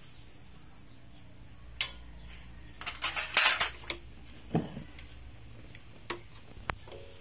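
Light metallic clinks: a few single clinks and a short burst of clattering about three seconds in, from metal objects being handled.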